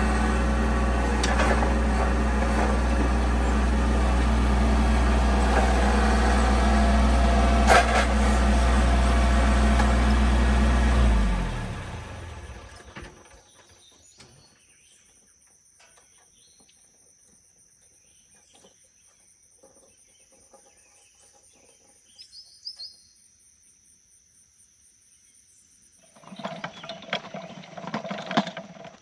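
An engine running steadily, then shut off about eleven seconds in, winding down over a second or two. Afterwards insects keep up a steady high drone, a bird chirps once, and some handling noise starts near the end.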